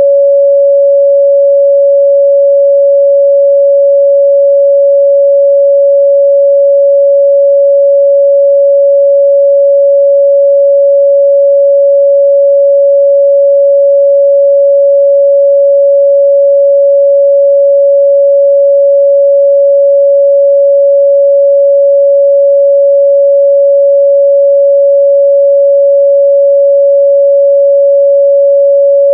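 A steady, loud pure sine-wave test tone at 561 Hz, held at one unchanging pitch with no other sound.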